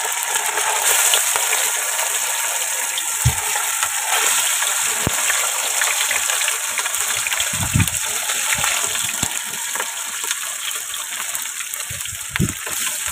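Fish pieces deep-frying in hot oil in an aluminium pot: a steady sizzle, with a few dull knocks.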